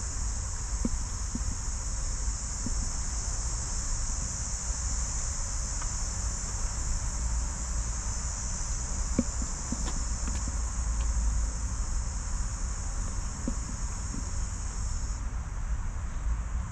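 A steady high-pitched insect chorus that drops away sharply about fifteen seconds in, over a low rumble.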